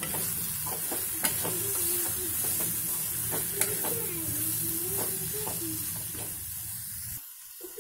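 A spatula stirring sweet corn and tomato masala frying in an aluminium kadhai: a steady sizzle, with repeated scrapes of the spatula against the pan. The sound cuts off suddenly shortly before the end.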